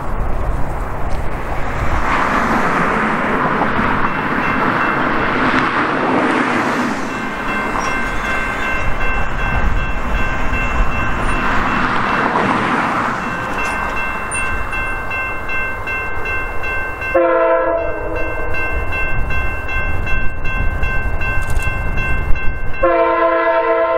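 Amtrak P40DC diesel-electric locomotive approaching with its train, rumbling, with a steady high whine setting in about a third of the way in. Its horn sounds twice: a blast of just over a second about three-quarters of the way through, and another starting just before the end.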